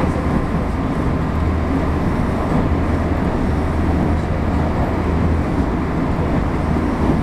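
JR West 225 series 0-subseries electric train running at speed, heard from inside the passenger car: a steady running noise from wheels on rail with a constant low hum underneath.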